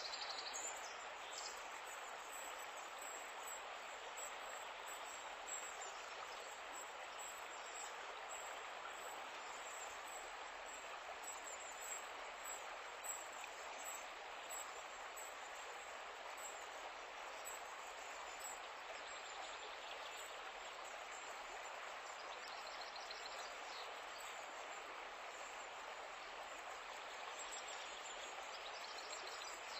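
Calm river water flowing steadily, an even rushing wash. A few faint high chirps come and go now and then.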